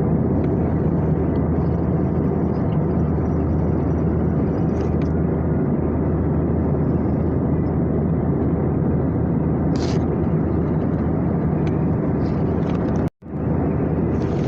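Steady drone of an airliner cabin in flight: engine and airflow noise with a low hum underneath. It cuts out sharply for a moment about 13 seconds in.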